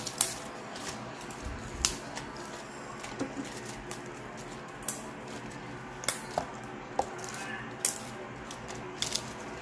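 Cut pechay (bok choy) leaves and stems dropped and settling into a clear plastic tub, giving a scattering of sharp light taps and clicks, roughly one every second, over a steady low background hum.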